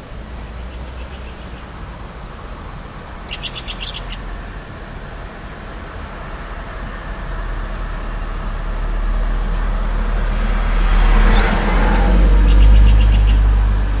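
A car passing on a nearby road: a low rumble with tyre noise builds over several seconds, is loudest near the end, then falls away. A songbird gives a quick run of short high chattering notes about three seconds in, and again near the end.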